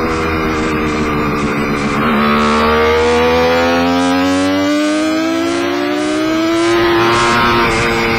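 Kawasaki KH-500 air-cooled two-stroke triple under way. The revs drop about two seconds in, climb steadily for several seconds as the bike accelerates, then drop again near the end.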